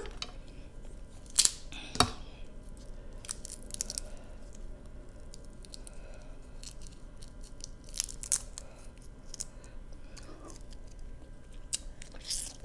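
Snow crab leg shells being cracked and snapped open by hand as the meat is picked out, a few sharp cracks spread out with quieter stretches of picking between them.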